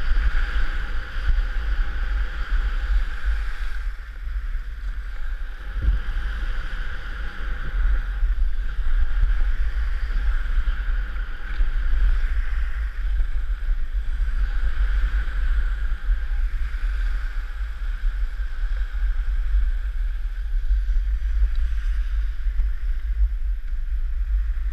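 Wind buffeting a helmet-mounted GoPro Hero3 Black as the skier moves downhill, a steady low rumble, with the hiss of skis sliding over groomed snow.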